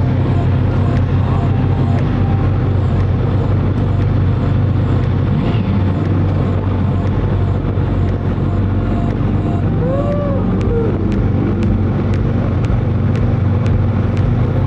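Kawasaki Ninja 1000SX's inline-four engine idling steadily. About ten seconds in, a short tone rises and falls over it.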